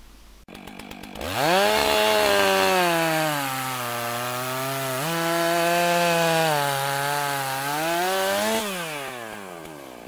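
Two-stroke chainsaw engine revving. After a few short clicks it climbs sharply to high revs about a second in, dips and rises again midway, then winds down near the end.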